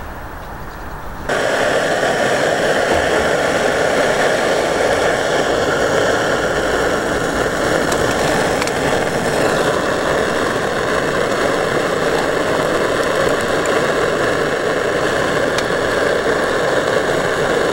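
Fire Maple FMS-300T canister gas stove burner running, a steady hiss from the flame that comes in suddenly about a second in.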